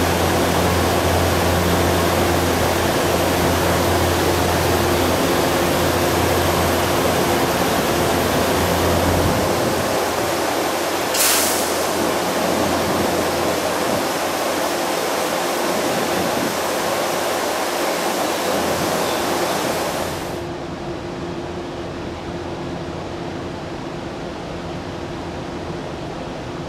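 Railway station platform ambience: a steady rushing noise with a low hum that stops about nine seconds in, and a brief sharp hiss about eleven seconds in. About twenty seconds in the noise suddenly drops to a quieter, steady background.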